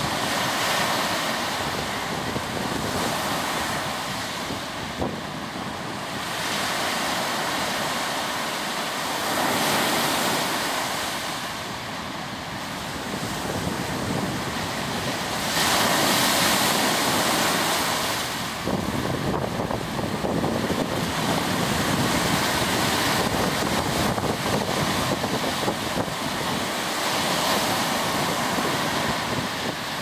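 Wind-driven waves breaking on a sandy lakeshore, the surf swelling and fading every few seconds, loudest a little past halfway. Gusty wind buffets the microphone throughout.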